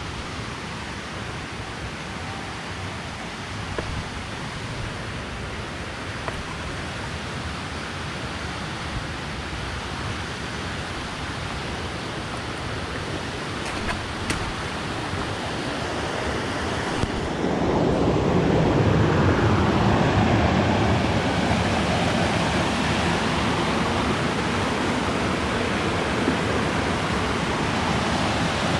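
Stream water rushing over boulders, a steady hiss that grows gradually louder and swells sharply a little past halfway.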